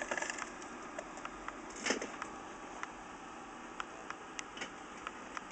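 Handling noise as a small wooden-cased flip clock is moved and set down on a glass-topped desk: scattered light clicks and knocks, with one louder scuffing knock about two seconds in.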